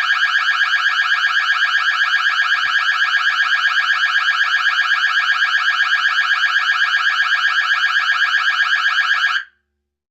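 Electronic alarm-like buzzer tone, warbling rapidly at several pulses a second on a steady pitch, cutting off abruptly near the end.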